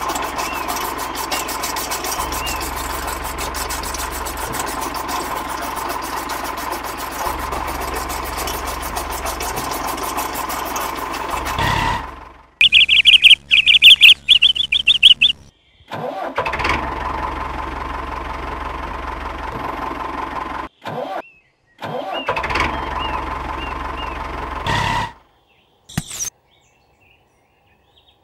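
Small motor running steadily with a constant whine for about twelve seconds, then again in two shorter stretches later on. Between them, about twelve seconds in, comes a loud, shrill warbling tone in quick bursts lasting about three seconds.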